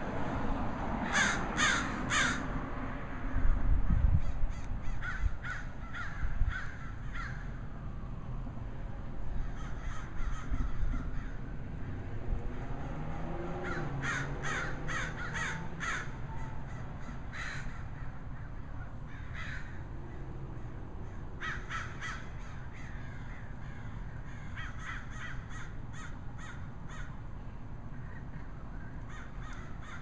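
A flock of crows cawing in clusters of quick, repeated caws every few seconds, with a low knock about four seconds in.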